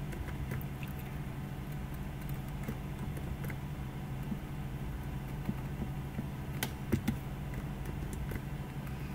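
Computer keyboard keys being pressed, scattered irregular clicks, with two louder key strikes about two-thirds of the way in, over a steady low hum.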